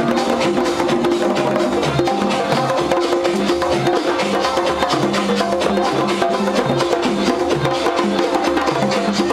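Loud dance music with a repeating bass line, layered with fast, dense hand percussion from drummers playing along live.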